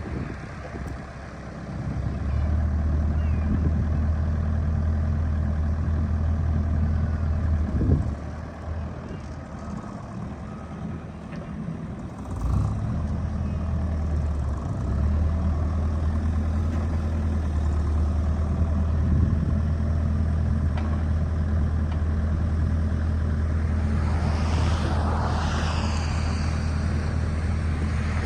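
2007 Bobcat 335 compact excavator's diesel engine running with a steady low hum. It picks up about two seconds in, drops back around eight seconds and comes up again at about twelve seconds. Near the end there are high-pitched squeals that rise and fall.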